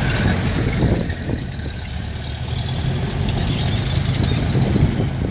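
Engines of small vintage tractors running steadily at low speed as they drive close past, a steady low engine note.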